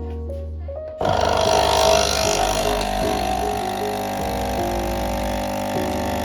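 Nespresso Inissia capsule coffee machine's pump buzzing as it brews, starting suddenly about a second in and running steadily.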